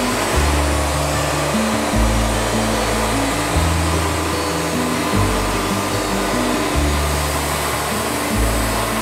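Band sawmill cutting through a log: a loud, steady rushing noise of the engine and blade, with background music whose bass note changes every second or two.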